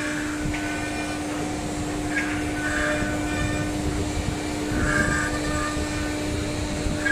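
CNC router spindle carving a relief pattern into a board, with a steady unchanging whine and cutting noise that swells every two to three seconds as the bit works along its path.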